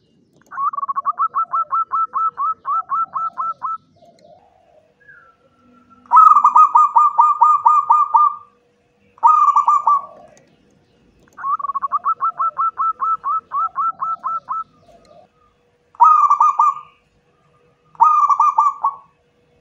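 Zebra dove (perkutut) song: repeated phrases of rapid staccato cooing notes, long runs of about four notes a second alternating with short bursts, with short gaps between phrases. A faint steady hum runs underneath.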